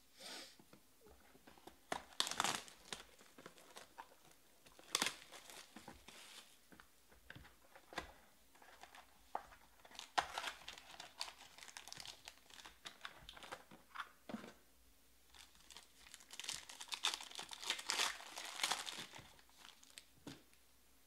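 Hands opening a Panini Obsidian trading-card box and tearing open the card pack: bursts of crinkling and tearing wrapper and rustling card stock, heaviest about 2, 5, 10 to 12 and 16 to 19 seconds in.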